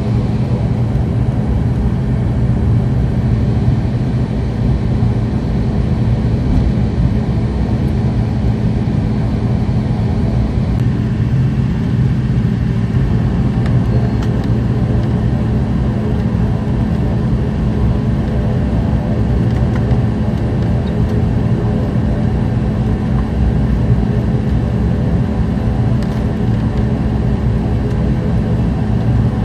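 ATR 72 twin-engine turboprop's engine and propeller running steadily while the aircraft taxis, heard from inside the cabin beside the propeller: an even, low drone with a steady hum and no change in power.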